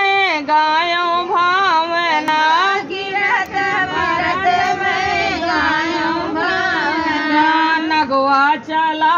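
Women singing a North Indian wedding folk song (parichhan geet) in high voices. One voice carries the tune at first, and from about three seconds in several voices overlap for a few seconds.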